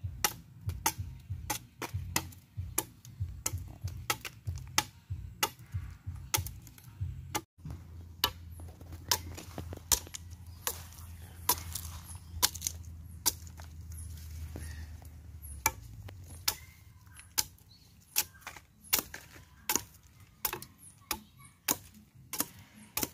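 Machete chopping and shaving the head of a wooden pestle: sharp, irregular blade strikes into wood, somewhat under two a second, as the pestle is trimmed to shape.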